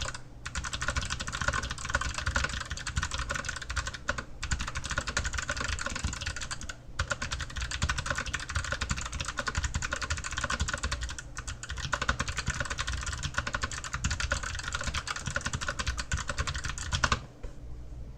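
Fast, continuous typing on an Archon AK87 mechanical keyboard with clicky Kailh Box White switches, each keystroke a sharp click. There are a few short pauses, and the typing stops about a second before the end.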